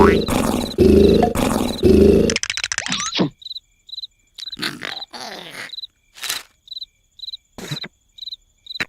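Cartoon snoring sound effect: a loud, rough, roar-like snore in long breaths that cuts off about two and a half seconds in. Then crickets chirp steadily about twice a second, with a few short soft noises between the chirps.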